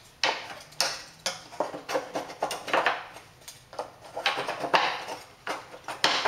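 Thin plywood separator strips, about 3/16 inch thick, clattering and knocking against each other and the wooden drawer as they are slid into slots to form an interlocking egg-crate grid: an irregular run of sharp wooden taps and clicks.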